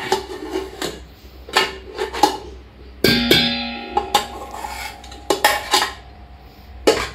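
Metal spoon scraping and knocking against a pressure cooker and serving dishes as cooked biryani rice and chicken are scooped out: a string of sharp clinks, one about three seconds in leaving a metallic ring for about a second.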